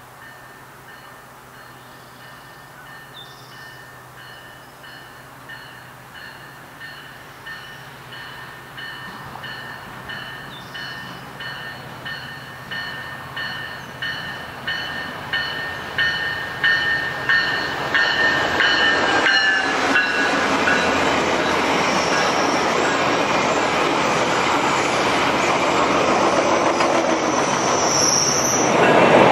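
Amtrak Cascades train led by a Siemens Charger locomotive approaching and passing, its bell ringing steadily. The bell grows louder and drops in pitch as the locomotive goes by a little past halfway. The rumble of the passing train then builds, with brief wheel squeals near the end.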